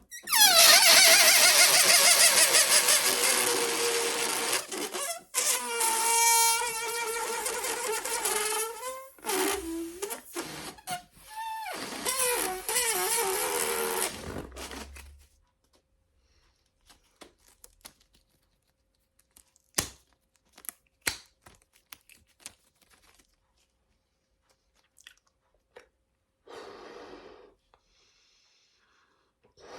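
Air rushing out of a foil balloon with a loud squealing whine, its pitch sliding down, breaking off and starting again several times before it stops about halfway through. After that come faint crinkles and clicks, and a short blowing sound near the end.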